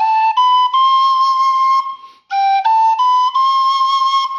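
Thai khlui (vertical duct flute) playing the rising notes sol, la, ti, do, the top note held for about a second, then the same run again after a short break. Each note sounds clean and in tune without half-holing, which the player gives as the sign of a properly made flute.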